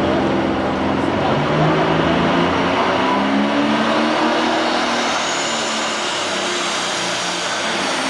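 Turbocharged diesel engine of a 7,500 lb super stock pulling tractor running at full power while hauling the weight sled, its note wavering up and down under load. A high whistle rises in about five seconds in.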